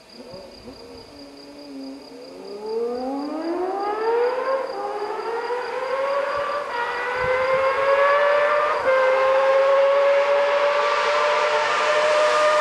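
Honda CBX 1000's inline six-cylinder engine, fitted with a Guyonnet electronic ignition, accelerating hard through the gears as the bike approaches, growing steadily louder. The revs rise with three quick upshifts about two seconds apart, then hold high and steady near the end.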